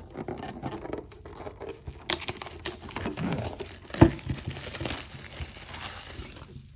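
Plastic shrink-wrap being torn and crinkled off a metal collector's tin, with many small crackles and a sharp knock about four seconds in.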